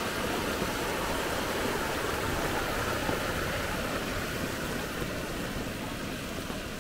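Muddy rain runoff rushing down a small creek over rock leaky weirs: a steady rush of water that grows slightly fainter over the last couple of seconds.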